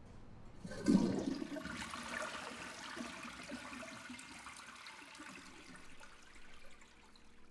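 Toilet flushing: a sudden rush of water about a second in, then a steady draining and refilling noise that slowly fades.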